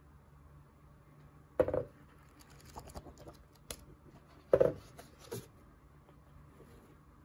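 Pages of an oversized hardcover comic book turned by hand: two louder papery swishes as pages flip over, about three seconds apart, with lighter paper rustles and ticks between them.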